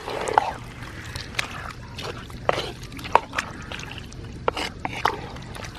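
Wooden spatula stirring chunks of mutton in thick curry masala in a clay pot: wet squelching and slopping with irregular clicks and scrapes of the spatula against the pot.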